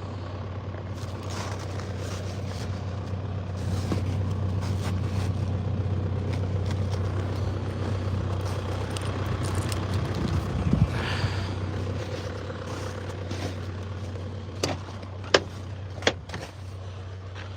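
A motor vehicle's engine running steadily with a low hum, swelling briefly about two-thirds of the way in, with a few sharp clicks near the end.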